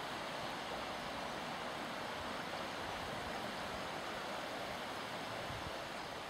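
River water flowing: a steady, even rush of water.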